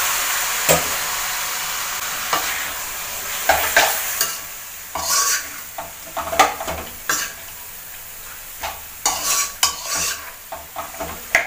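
Chicken and onions sizzling in a hot metal kadai right after a little water is poured in, the hiss loud at first and dying down over the first few seconds. Then a spatula stirs and scrapes against the pan in irregular scrapes and clicks.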